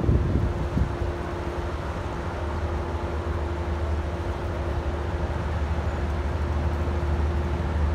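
Diesel locomotive running steadily, a low engine rumble with a constant hum that does not change in pitch.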